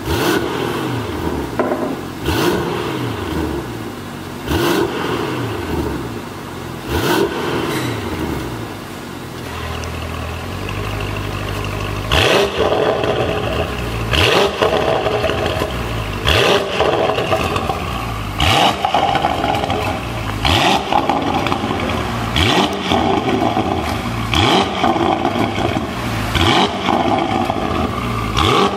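Porsche Panamera GTS V8 through a Fi EXHAUST aftermarket full exhaust system, revved in repeated blips about every two seconds, the pitch climbing quickly and falling back each time. It settles to a steady idle around ten seconds in, then the blips come back sharper and louder.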